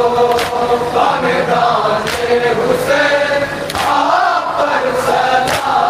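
A group of men chanting a nauha, a Shia lament, in unison over a microphone in long, slowly gliding lines. Sharp slaps from chest-beating (matam) cut through a few times.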